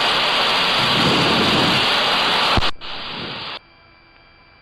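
Two-way radio static: a loud steady hiss of an open channel carrying no voice, which cuts off with a click a little past halfway, drops to a fainter hiss and then fades nearly away near the end.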